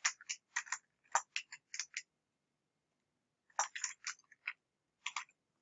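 Computer keyboard keystrokes: a quick run of typing, a pause of about a second and a half, then a second shorter run of keystrokes.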